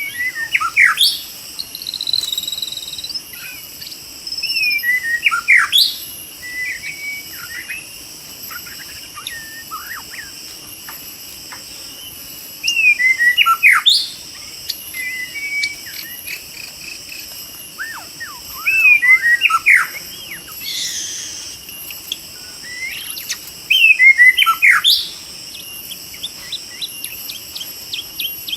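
White-rumped shama singing loud phrases of rapid whistled notes, a phrase every five or six seconds with scattered shorter notes between. A steady high insect drone runs underneath.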